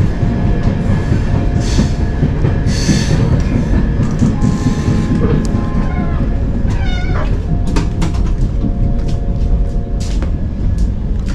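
Passenger train carriage in motion, heard from inside: a steady low rumble with scattered clicks and knocks from the wheels and coupling, and faint steady tones. A short wavering squeal comes about seven seconds in.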